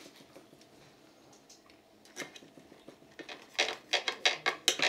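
Knife and fork cutting gammon steak on a metal platter: a couple of single clinks, then from about three seconds in a quick run of knife strokes scraping against the plate, about five a second.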